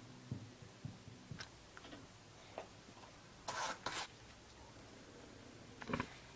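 A heated nakwha burning iron being handled against hanji paper: faint clicks and scrapes, two short louder rustling scrapes about three and a half seconds in, and a sharp knock just before the end. A low hum stops about a second and a half in.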